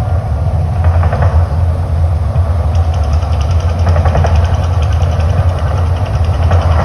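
A loud, steady low rumble, with a faint rapid ticking from about three seconds in.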